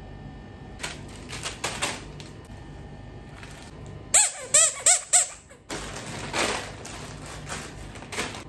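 Plastic snack packets rustling and crinkling as they are handled. About four seconds in, a rubber duck squeaks four times in quick succession, each squeak swooping in pitch. Then more packet crinkling follows.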